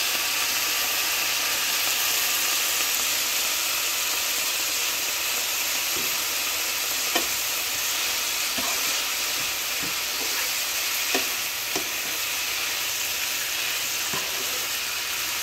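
Vegetables sizzling steadily in a hot non-stick frying pan as they are stir-fried, with several light taps of the spatula against the pan in the second half.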